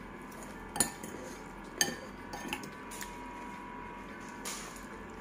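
Metal fork and spoon clinking against a ceramic bowl while stirring and scooping noodles. There are a few scattered sharp clinks, the loudest about one and two seconds in, over a faint steady hum.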